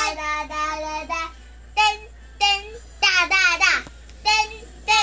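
Young children singing in short high-pitched phrases with brief gaps between them, one voice sliding steeply down in pitch about three and a half seconds in.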